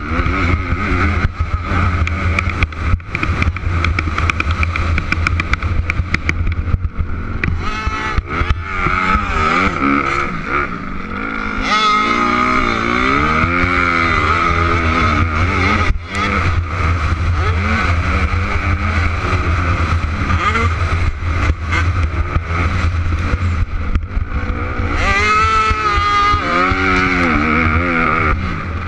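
Motocross bike engine revving up and down as the rider accelerates and shifts, heard close up from the bike. A steady low rumble runs underneath.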